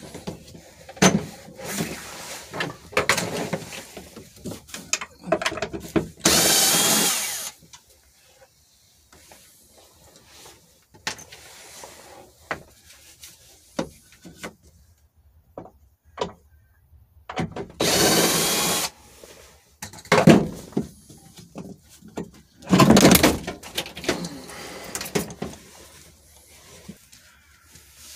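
A power driver spinning fasteners out in three runs of one to two seconds each, as the sunroof assembly is unbolted from the roof, with scattered knocks and rattles of parts being handled between the runs.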